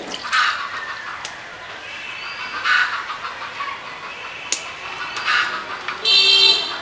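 Chickens clucking, with several short loud calls and a longer, louder call near the end.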